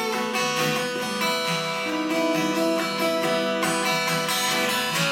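Acoustic guitar played without vocals: strummed chords between sung lines of a song.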